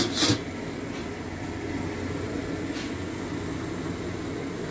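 A stainless-steel lid clatters as it is set onto a wok at the start, then a gas stove burner runs with a steady rush under the covered wok.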